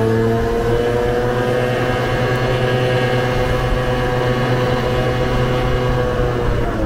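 Vespa scooter engine running at a steady cruise, with wind rumbling on the microphone; the engine note rises slightly early on and drops near the end as the throttle eases off.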